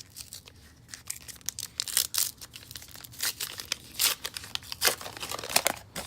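A trading-card pack wrapper being torn open and crinkled by hand: a run of sharp rips and crackles coming in several spurts.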